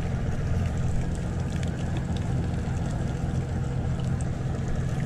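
Boat engine running with a steady low drone that holds one pitch, a few faint ticks over it.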